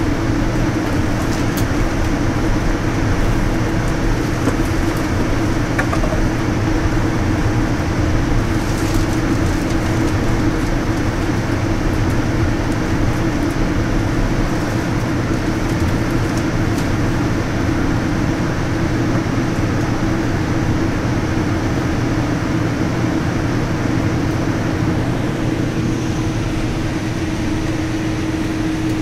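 Steady cabin noise of a Boeing 787-9 airliner taxiing, its engines at idle: a constant rumble with a steady hum, and a few faint clicks.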